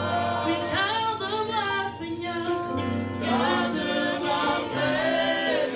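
Small vocal group singing together in harmony into microphones, over steady sustained low notes.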